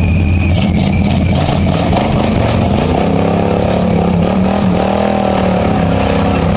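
Jeep CJ's engine revving under load as it drives into a mud pit, with the engine pitch rising and falling a few seconds in.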